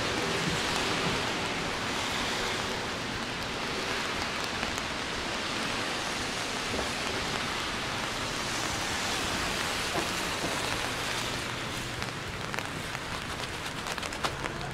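Rain falling steadily, an even hiss of drops on the surfaces around, with a few sharper drops ticking near the end.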